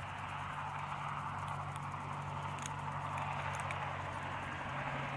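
Ultralight spinning reel being cranked to retrieve a small jig: a steady whir with faint ticks, over a low steady hum.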